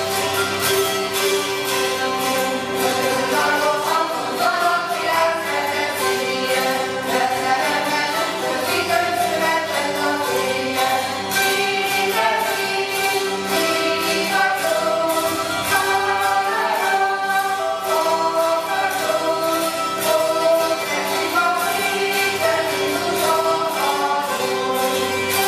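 Ensemble of Hungarian citeras (fretted table zithers) playing a melody together in quick, steady strokes over a held drone note.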